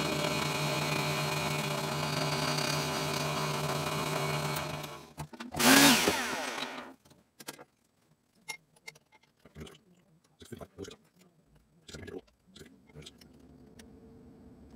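Drill press running an end mill that cuts a pocket into a metal saxophone mouthpiece: a steady machine sound that stops about five seconds in. A louder burst with falling pitch follows as the spindle is switched off and winds down. Then come scattered light clicks and knocks of handling.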